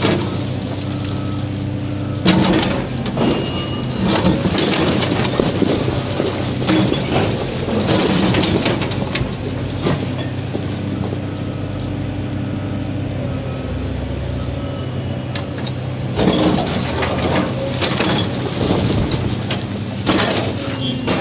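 CAT 336D excavator's diesel engine running steadily under load while a Pamter demolition attachment's tooth rips into marble, with bursts of stone cracking and grinding at intervals.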